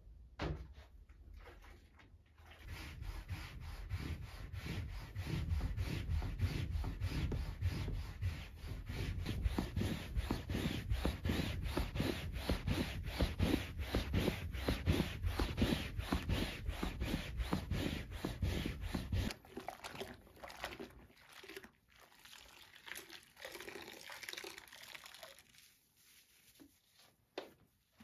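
A sponge scrubbing a microfiber sofa cushion in quick, even back-and-forth strokes, about three a second, which stop about two-thirds of the way in and give way to fainter, scattered handling sounds.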